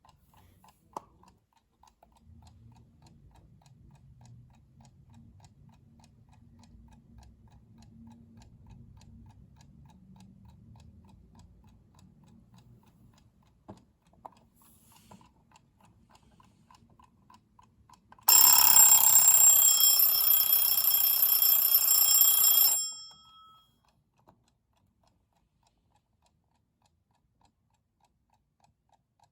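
Pedro Izquierdo night-table alarm clock ticking faintly and evenly, then its alarm bell ringing loudly for about four and a half seconds before cutting off suddenly and ringing out briefly.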